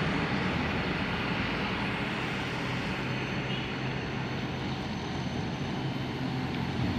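Intercity buses passing on the road: a steady diesel engine drone with tyre and road noise.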